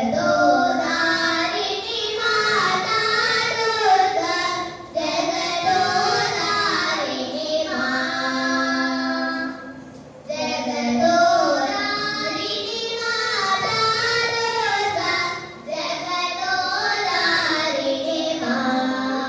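Two young girls singing a Carnatic vocal piece together into microphones, long melodic phrases with sliding pitch ornaments. The phrases break off briefly about every five seconds.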